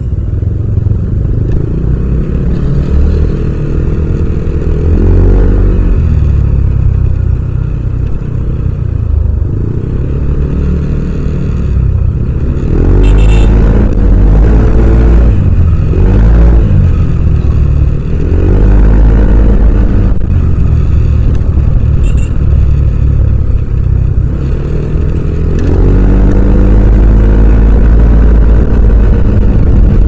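Yamaha Aerox 155 scooter's single-cylinder engine and exhaust, heard from the rider's seat, running through stop-and-go riding. The engine swells and falls in pitch several times as the throttle is opened and closed, loudest from about 13 seconds in and again near the end.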